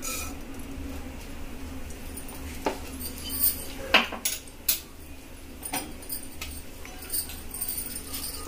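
Cumin seeds crackling in a little hot ghee in an aluminium pressure cooker: irregular sharp pops and ticks, about one a second, over a steady low hum.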